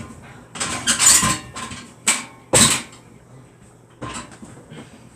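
Household items being handled and shifted: a rustling scrape about half a second in, then two sharp knocks as things are set down, and a few lighter clicks near the end.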